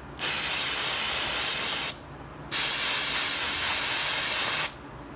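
Two long pressurised sprays of about two seconds each, with a short pause between them, hissing steadily onto a motorcycle brake pad to clean off brake dust.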